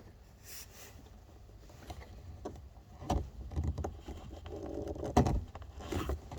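Sharp clicks and knocks of a hand tool and metal parts being handled and worked, the loudest about three seconds and five seconds in, over a faint low hum.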